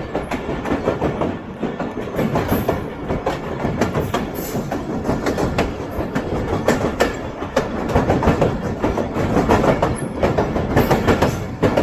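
Jaffar Express passenger train running at speed, heard from on board, with a steady rumble and a rapid clatter of wheels over the rails as it crosses a river bridge.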